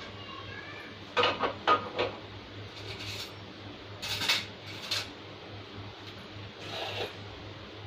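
Scattered clinks and knocks of kitchenware being handled, about seven short separate strikes, as cups and a food processor's plastic bowl are set about on a counter.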